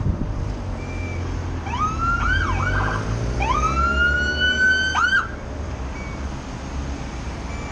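Vehicle siren sounding: a few short rising-and-falling whoops, then a long rising wail held for about a second and a half that ends in a quick whoop and cuts off suddenly, over a low rumble of passing vehicles.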